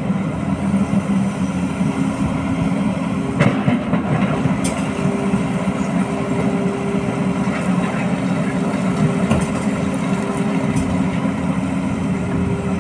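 Diesel engines of tracked excavators running steadily, with a higher steady tone joining about five seconds in. A couple of sharp clacks of rock under the digging bucket come about three and a half and five seconds in.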